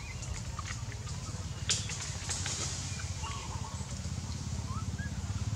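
A low, steady motor rumble with fine, even pulsing, overlaid by a few sharp clicks and some faint short chirps.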